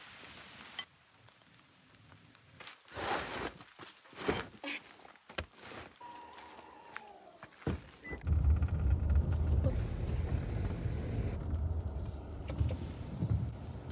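Subaru's power tailgate motor whirring with a falling pitch as the hatch closes, ending in a thud, then the car's steady low rumble from inside the cabin as it drives on a dirt road.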